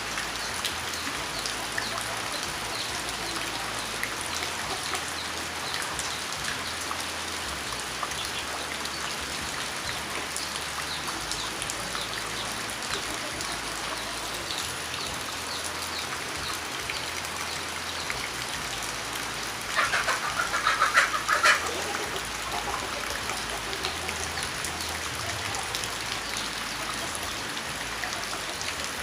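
Steady rain falling on a surface, with many individual drops and drips. About two-thirds of the way through, a short burst of loud, repeated calls from a bird, likely a domestic fowl, rises over the rain for about two seconds.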